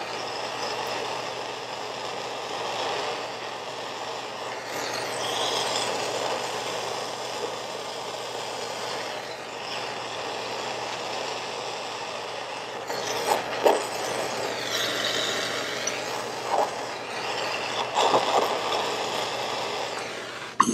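Gas soldering torch flame hissing steadily while it heats a copper-to-brass sweat joint as solder is fed in, with a few short crackles in the second half.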